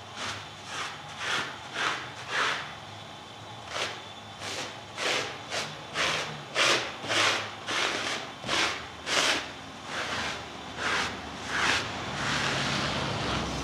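Plastic dough scraper dragged over a flour-dusted cloth-covered table, gathering leftover flour. It makes quick repeated scraping strokes, about two a second, that merge into a steadier hiss near the end.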